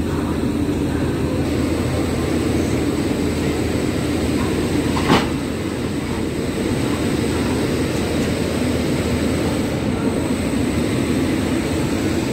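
Railway locomotive running while standing close by: a steady rumble with a thin high whine over it, and one short sharp click about five seconds in.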